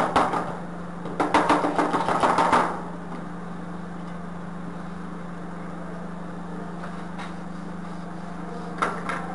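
A wooden strip scraping over silicone sealant in a wooden tile mould, a rasping stretch of about a second and a half starting about a second in, with a few light knocks near the end. A steady low hum runs underneath.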